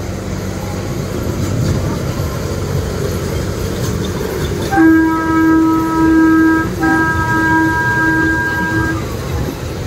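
Amusement-park toy train running with a steady low rumble. About five seconds in its horn sounds: a steady blast of about two seconds, a brief break, then a second blast of about two seconds.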